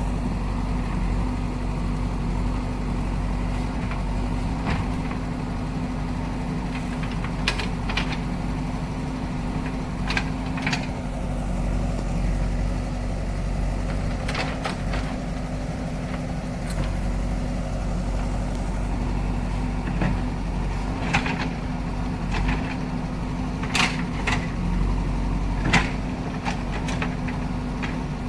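Backhoe loader's diesel engine running steadily, with scattered sharp knocks and clanks over it.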